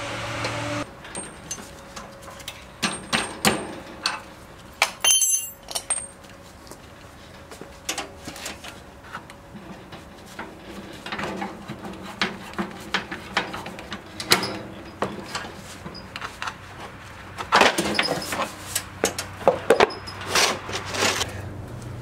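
Scattered metallic clicks, clinks and knocks of hand work on a wood chipper's wheel and axle parts as the wheel is taken off, busiest near the end.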